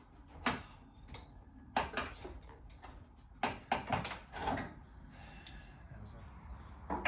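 Hand tools clinking and knocking against metal while the door hinge bolts are being worked loose: about half a dozen sharp clinks in the first five seconds, quieter afterwards.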